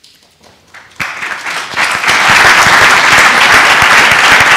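Audience applauding, starting about a second in and building to a full, steady round of clapping within another second.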